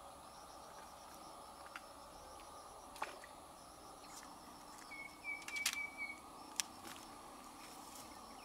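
Insects chirring steadily with a fast pulsing trill, under a few sharp clicks and knocks of fishing tackle being handled. The loudest is a cluster of clicks about five to six seconds in, with a short high whistling tone at the same time.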